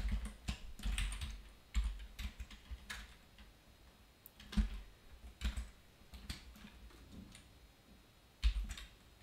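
Typing on a computer keyboard: irregular clusters of keystroke clicks, sparser in the second half, with a last quick burst near the end.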